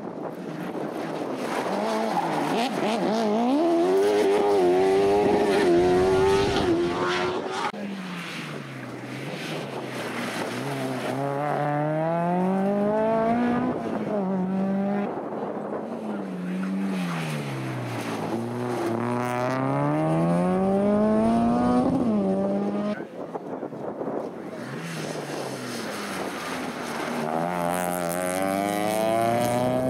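Competition cars accelerating hard up a hillclimb course one after another. Each engine note climbs in pitch and drops back at the gear changes, several times over.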